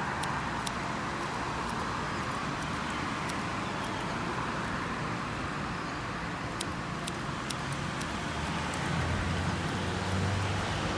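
Steady road traffic noise with a few light clicks; a vehicle's low engine hum swells near the end.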